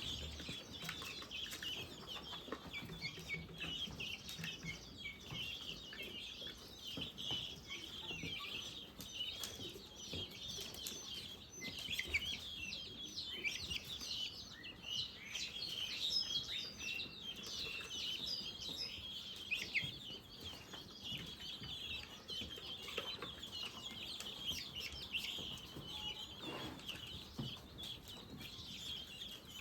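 Many young guinea fowl keets peeping together: a steady, overlapping chatter of short, high chirps.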